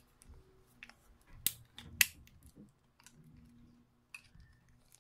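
Small clicks and taps from a plastic remote key fob being handled as the key blade is slid back into it, with two sharper clicks about one and a half and two seconds in.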